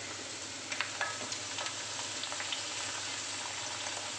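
Sliced shallots frying in hot coconut oil with mustard seeds, garlic and curry leaves in an uruli pan: a steady sizzle with scattered crackles, a few sharper pops about a second in.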